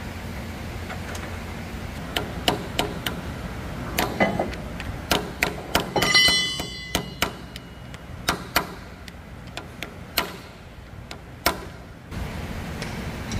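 Metal parts clinking and knocking in irregular sharp taps. One strike about six seconds in rings for about a second like struck steel. A low rumble runs underneath.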